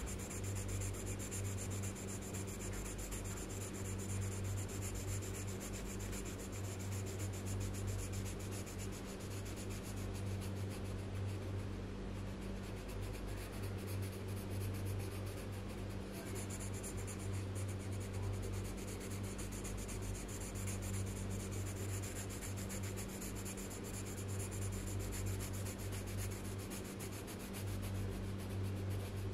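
Colored pencil scratching on paper in quick back-and-forth shading strokes, continuous throughout, over a steady low electrical hum.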